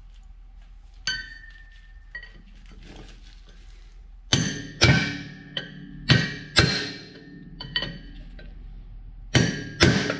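Hammer blows on steel, driving a wheel bearing race in the truck's front hub: one strike about a second in, then a run of about seven heavy blows in the second half, each leaving a metallic ring.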